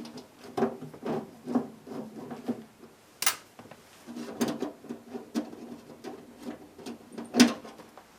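A screw being worked out with a nut driver among the freezer's plastic fan-housing parts: a run of small irregular clicks, scrapes and knocks, with a sharp click about three seconds in and a louder one near the end.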